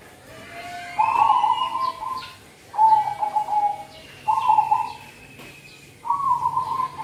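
Zebra dove (perkutut) cooing: four short warbling coo phrases, each about half a second to a second long and spaced about a second and a half apart. Faint higher chirps sound alongside.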